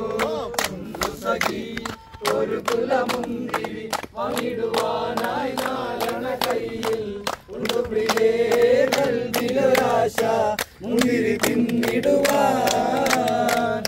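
Several voices chanting together in unison, punctuated by a steady run of sharp claps.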